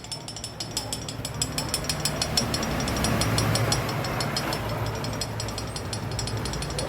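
A small single-cylinder motorcycle engine running, with a fast, even metallic ticking, roughly ten ticks a second, over its low hum. The hum gets louder about three seconds in.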